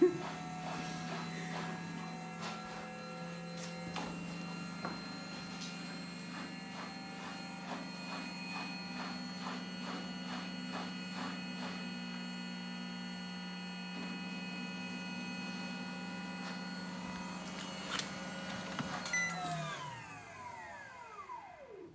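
Gorenje washing machine's motor and drum running with a steady hum and a faint regular ticking, then spinning down near the end, the pitch falling away as it coasts to a stop.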